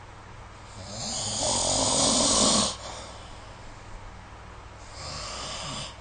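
A sleeping person snoring: a long, loud snore starting about a second in and lasting around two seconds, then a shorter, quieter snore near the end.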